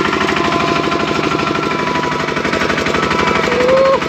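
Single-cylinder Kubota diesel of a two-wheel walking tractor running steadily under load while it pulls a trailer: a fast, even chugging of its firing pulses.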